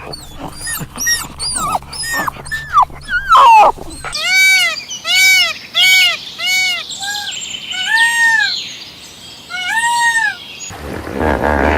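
Animal calls: a quick run of short, high, gliding yips, then from about four seconds in a series of evenly spaced, arched, squealing calls about two a second, with a lower, different animal sound starting near the end.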